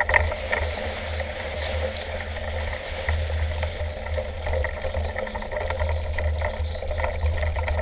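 Mountain bike rolling along a grassy dirt track, heard from a handlebar-mounted camera: a steady rumble of wind on the microphone over tyre noise, with small rattles and clicks from the bike.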